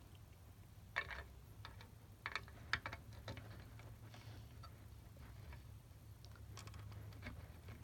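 Faint, irregular light clicks and taps of a plastic snap-fit model airliner being handled, over a low steady hum.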